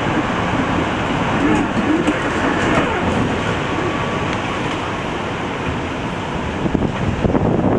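Tatra T3 tram heard from inside the car: steady running noise with a low wavering hum. The tram creeps forward and begins to pull away near the end, with a little more clatter.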